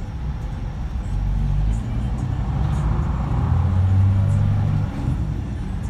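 Scania K124 six-cylinder diesel engine of a coach under way, heard inside the cabin with road noise. The engine note builds louder from about three seconds in, then eases off sharply near five seconds. Light high-pitched rattles come from the cabin.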